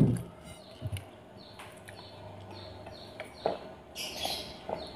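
A small bird chirping over and over, short falling chirps about two or three a second, with a few soft knocks. About four seconds in, a brief noisy sip from a cup.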